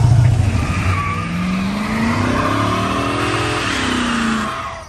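Car revving hard during a burnout, with tire squeal over the engine. The engine pitch climbs, then falls as the sound fades out near the end.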